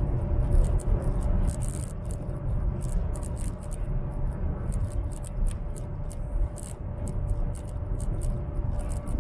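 High-speed train cabin at speed: a steady low rumble with a faint steady hum, overlaid by many small irregular ticks and rattles.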